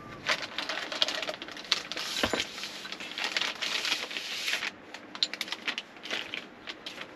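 Clear plastic packaging crinkling and crackling as a part is pulled out of it, irregular and dense for about four and a half seconds, then thinning to scattered clicks.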